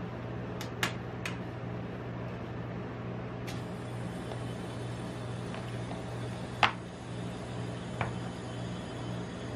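Steady low hum of a rolled-ice-cream cold plate machine's refrigeration unit, with sharp clicks of metal spatulas as the ice cream rolls are handled into a paper cup. Three quick clicks come near the start, the loudest click about two thirds of the way through, and another shortly after.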